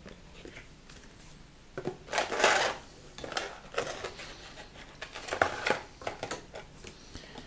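Packaging being handled: the folded paper instruction leaflet and a clear plastic blister tray. There is a loud rustle about two seconds in, followed by scattered crinkles and clicks as the plastic tray is opened.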